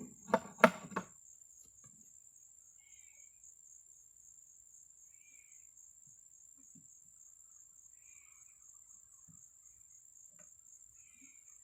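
Crickets trilling steadily at a high pitch, with three sharp knocks in the first second, close together.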